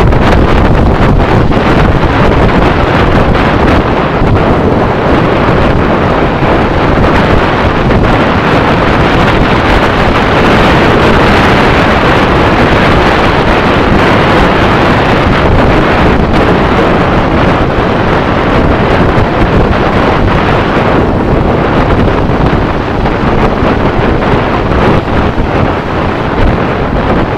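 Loud, steady wind rushing over the microphone of a motorcycle's on-board camera at road speed, covering the sound of the bike. It eases a little about three-quarters of the way through.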